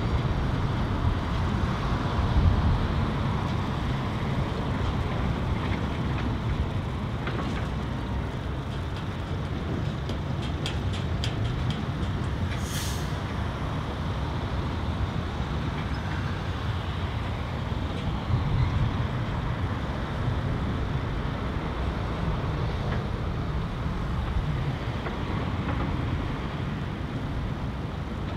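Diesel engines of the excavators and the Scania dump truck running steadily. About eight to twelve seconds in comes a run of sharp clanks, then a short hiss of air from the truck's air brakes.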